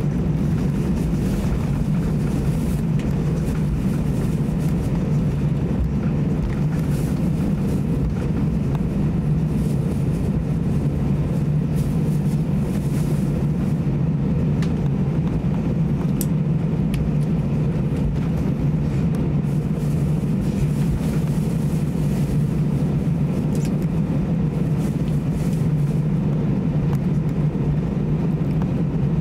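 Steady cabin noise inside an Airbus A320-200 taxiing after landing: the engines at idle give a constant low hum under an even rush, with a few faint knocks.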